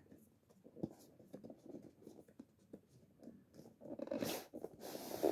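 Cardboard scraping and rustling as the packed contents are slid out through the open bottom of a microphone box. Faint handling noises at first, growing into a louder, longer scrape about four seconds in.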